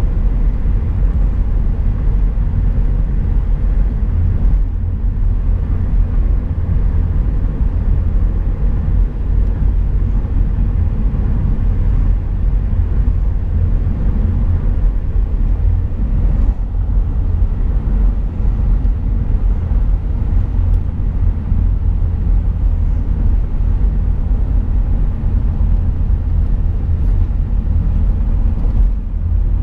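Steady low rumble of a car cruising on a highway, heard inside the cabin: tyre and road noise with the engine underneath.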